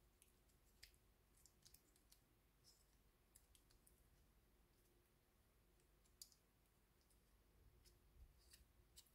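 Near silence with faint, scattered small clicks as an M.2 SSD is handled and seated in a plastic enclosure tray.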